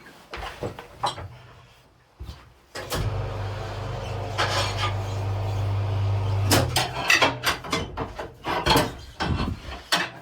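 An electric motor hums steadily for about three and a half seconds, starting about three seconds in, as a tyre changing machine turns the wheel. When it stops, sharp metallic clanks and taps of tools on the wheel and tyre follow.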